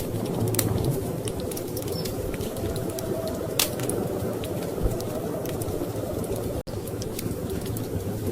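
Wood fire crackling in a fireplace, scattered sharp pops with one louder pop about halfway, over a steady low rumble of storm wind. The sound cuts out for an instant about two-thirds through.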